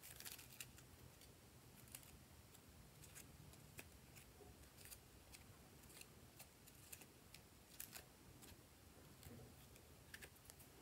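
Faint, irregular light clicks and taps as glitter foam heart cut-outs and small gold sequins are laid and dropped one by one into a glass dish of white slime base.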